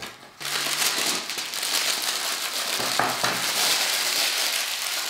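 Plastic bag of small parts crinkling and rustling as it is handled, a noisy crackle that starts about half a second in and keeps going.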